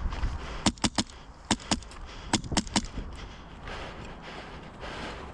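Phylax One HPA airsoft rifle firing quick semi-auto shots: about eight sharp cracks in three rapid groups, packed into roughly two seconds near the start.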